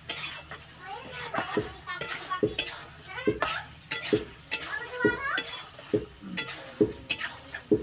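A long metal ladle scraping and knocking against a metal karai as chicken curry is stirred, about twice a second.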